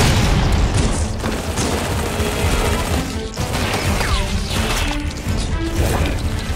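Battle sound effects: rapid gunfire and crashing explosions over dramatic soundtrack music.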